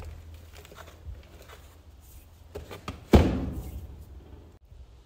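Light ticks and rustling of seed compost being scattered by hand into a plastic seed tray, then, about three seconds in, a single loud thunk as the filled tray is knocked down on the surface to settle the compost and drive out air pockets.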